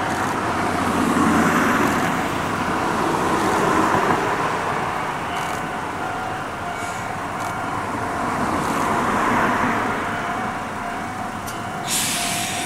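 Ohmi Railway 900-series electric train rolling slowly in and stopping alongside another electric train at the platform, with a steady mechanical hum. A short, sharp hiss of air comes near the end.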